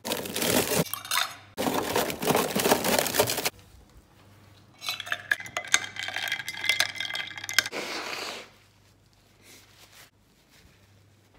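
A plastic bag rustling as a hand rummages in it, then a metal spoon stirring ice cubes in a glass mug, clinking against the glass for a few seconds.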